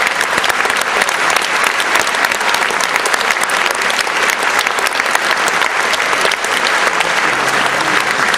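Audience applauding: dense, steady clapping that keeps an even level throughout.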